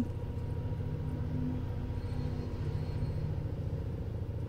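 Steady low rumble of a car's running engine, heard inside the cabin, with a faint even hum over it.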